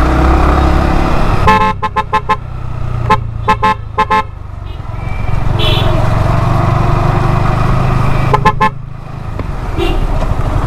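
Vehicle horn sounding in three bursts of quick short toots, the last one briefer, over a steady low rumble of engine and road noise.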